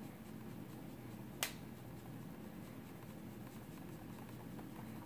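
A single sharp click about one and a half seconds in, over faint steady room noise.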